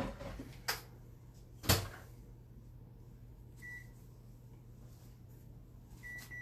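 Microwave oven loaded and shut: three clunks in the first two seconds, the loudest near two seconds in, then single keypad beeps, one near four seconds and a few near the end, as the cooking time is set.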